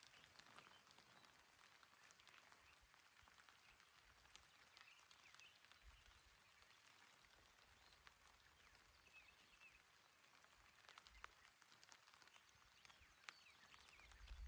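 Faint, gentle rain: a soft patter of many scattered drops, with a few faint short chirps here and there.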